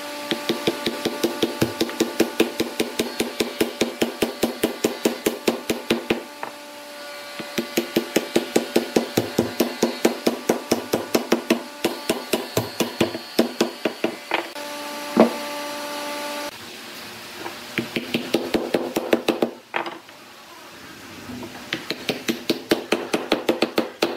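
Wooden mallet tapping wooden shape pieces down into fitted holes in a wooden block: rapid knocks, about four a second, in runs of several seconds with short pauses between.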